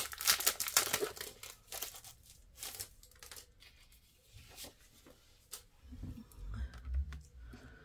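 A plastic packet crinkling and tearing as a plastic embossing folder is pulled out of it, the crackle thinning to a few scattered ticks after about three seconds. Near the end come a few soft low thumps as the folder is handled.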